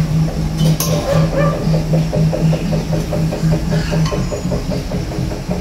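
A motor or engine running steadily: a low hum with a fast, even rattle over it.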